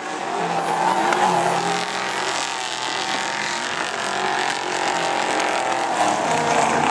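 Rally car engines running and revving hard, their pitch rising and falling as the cars accelerate and lift off.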